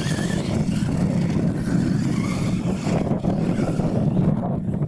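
Several Losi LMT radio-controlled monster trucks racing together, their brushless electric motors whining as the pitch rises and falls with the throttle, over a steady low hum.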